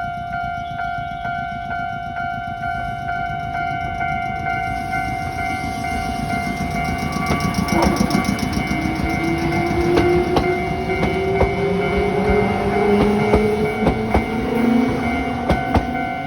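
A Japanese level-crossing alarm rings its repeating 'kan-kan' tone throughout. An Iyo Railway electric train pulls away with its motor whine slowly rising in pitch from about halfway through. Sharp clacks from the wheels over the rail joints come in the second half.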